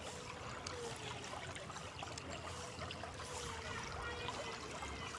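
River water trickling and splashing over stones: a steady burble with many small ticks.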